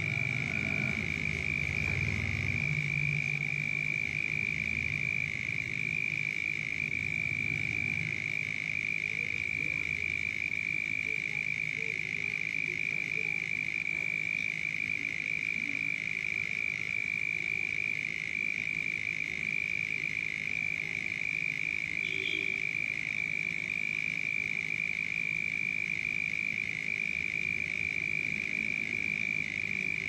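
Frogs calling in a night chorus: a steady high-pitched chorus that never lets up, with lower croaks mostly in the first few seconds.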